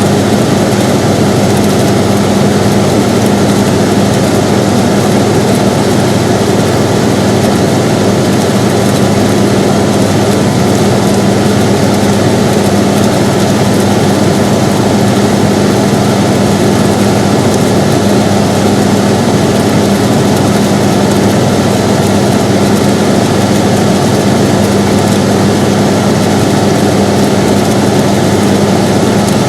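Air conditioner running steadily: a constant whooshing noise with a steady low hum.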